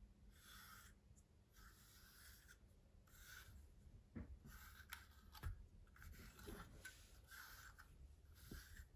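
Faint swishing of a grooming brush drawn through a Yorkshire terrier's coat in even strokes, about one a second, with a few light knocks near the middle.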